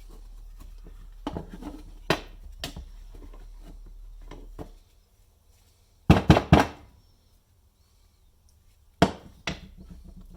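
Plastic casing and gear parts of a car polisher being handled and set down on a bench: scattered clicks and knocks, with a quick cluster of loud knocks about six seconds in and two more near the end.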